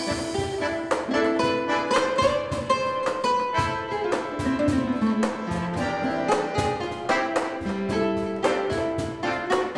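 Live acoustic jazz with the acoustic guitar to the fore, plucking a melody over chords, with a short run of falling notes about halfway through and a few held notes.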